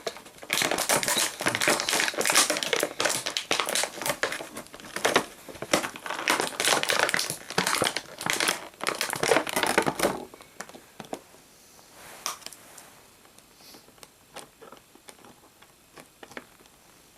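Plastic packaging crinkling and crackling as an action figure is worked free of its plastic tray, dense and loud for about ten seconds, then dying away to a few light clicks and taps.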